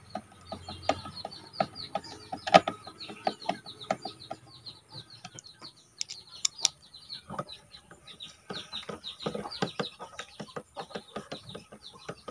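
Birds chirping quickly and repeatedly in short falling calls, with a few sharp clicks from screws, a screwdriver and plastic toy-gun parts being handled, about two and a half and six seconds in.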